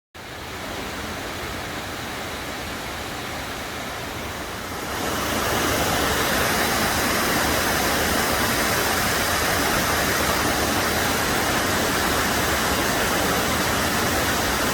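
Waterfall water rushing, a steady noise that steps up in loudness about five seconds in.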